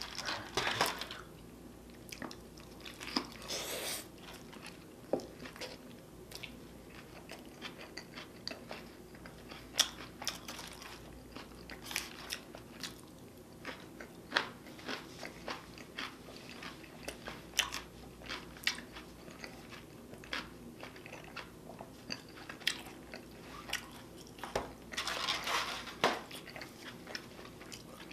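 Close-miked eating of a cheeseburger: chewing with many short crisp crunches and wet mouth clicks, and louder bites near the start and near the end.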